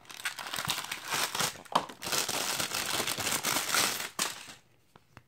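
Packaging of a Spigen Rugged Armor phone case rustling and crinkling as the case is pulled from its box and handled, dying away about four and a half seconds in.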